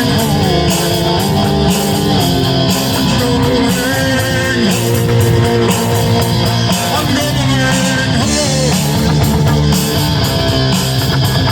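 Rock music played loud: a distorted electric guitar with bending notes over a steady beat.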